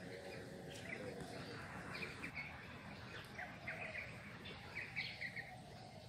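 Small birds chirping faintly in the background: several short series of quick high chirps from about two seconds in to near the end, over a low outdoor hum.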